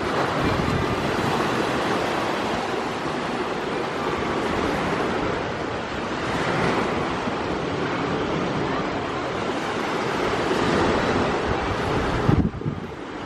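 Sea surf washing in steadily, swelling and easing, with wind blowing on the microphone. A sharp low thump of wind against the microphone comes near the end.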